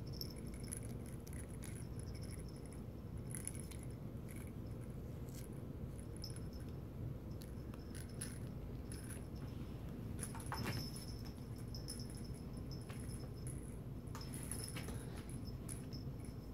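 Small jingle bell jingling on and off as a kitten bats at, grabs and wrestles a feather wand cat toy, with soft rustling on a couch cushion.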